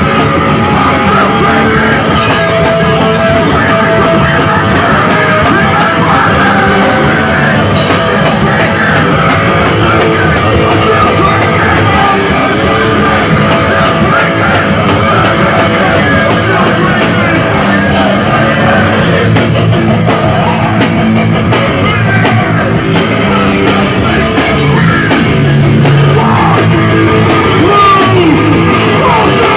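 Loud punk rock music with shouted singing.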